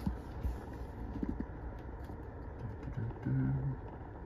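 Faint taps and handling noise from a phone on a gimbal being zoomed, over a steady low background hum, with a short low pitched hum a little over three seconds in.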